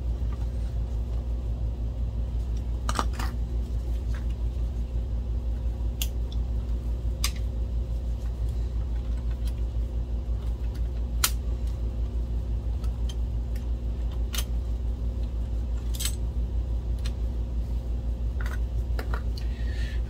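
Scattered small metallic clicks and taps as a screwdriver and tweezers work a small screw out of a projector's metal chassis, over a steady low hum.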